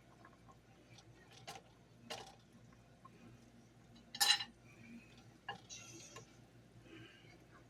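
Kitchen utensils and glass canning jars clinking and knocking in scattered light taps. One sharp clink about four seconds in is the loudest.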